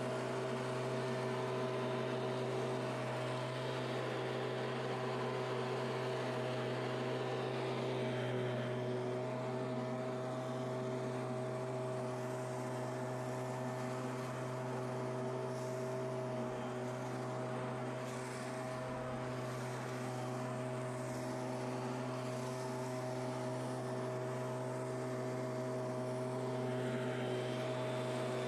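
Stihl two-stroke leaf blower running steadily: an even engine drone under the rush of air blowing dry leaves.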